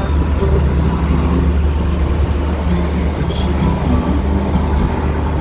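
Steady low rumble of road and engine noise inside a car's cabin while driving at freeway speed.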